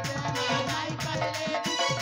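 Up-tempo dance music with a fast, steady drum beat of about four strokes a second, low drum strokes dropping in pitch, and a melody line over it.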